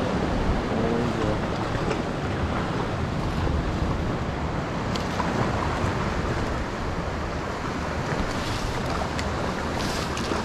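Sea waves washing and wind rushing over the microphone: a steady, even noise.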